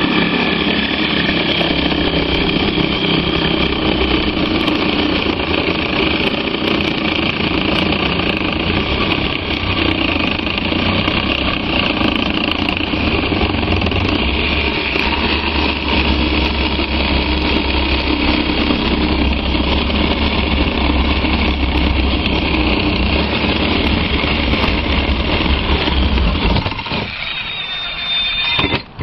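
Power drill running steadily under load, turning a long bit, then stopping about 27 seconds in.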